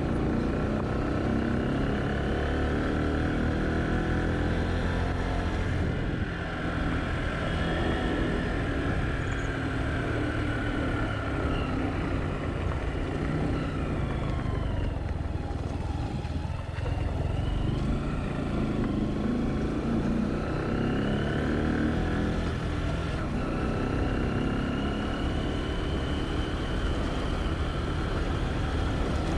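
Road vehicle engine running steadily, its pitch falling and rising again with changes in speed, dipping lowest about halfway through.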